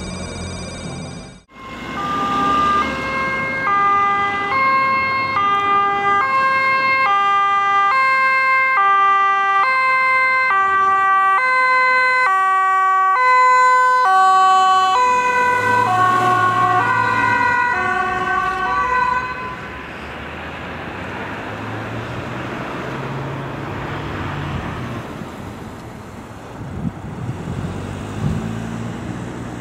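Dutch ambulance's two-tone siren, alternating high and low, with the tones dropping in pitch about fifteen seconds in as it passes. About twenty seconds in the siren stops, leaving road and traffic noise.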